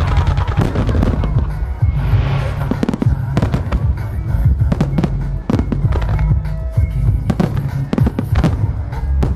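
A starmine firework barrage: aerial shells bursting in rapid succession, many bangs close together, with a brief crackling hiss about two seconds in.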